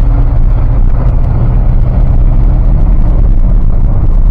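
Ford F-150 pickup under way, a loud steady rumble of engine and road noise.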